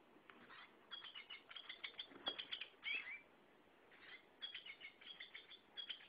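A plush goldfinch toy's sound box playing a recorded bird song when squeezed: two phrases of quick, high twittering chirps, the second starting about four seconds in.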